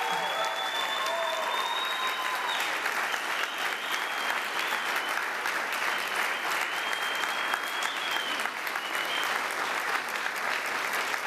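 Wedding guests applauding: many people clapping steadily. A thin, high held tone runs over the clapping for the first couple of seconds and again around the middle.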